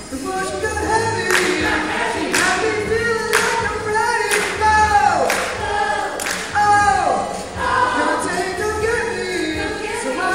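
Show choir singing together, with sharp beats about once a second under the voices and a few falling vocal slides.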